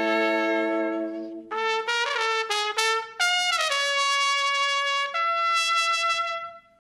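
Trumpet and trombone playing a ska horn line with no drums or bass under them. It opens on a held note, moves into a quick run of short notes, then settles into long held notes that change pitch about five seconds in and fade away just before the end.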